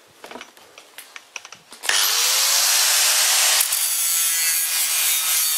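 A few faint clicks, then about two seconds in an angle grinder starts up with a rising whine and grinds down a weld bead on a steel square-tube corner, loud and steady.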